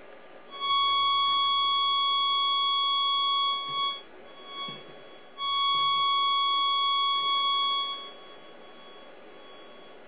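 Steady high tone from a microwave receiver's audio amplifier and speaker, sounding twice for about three seconds each time with a gap of about a second and a half. The tone is the received microwave signal: it sounds while the microwaves get through the copper-grid polarizers and drops out as the hand-moved polarizer blocks them.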